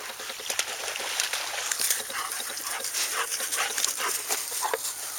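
Dogs making short vocal sounds amid a run of rustling and clicking noises.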